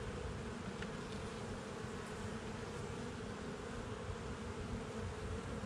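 A honeybee colony buzzing steadily in an opened hive, a continuous hum of many bees.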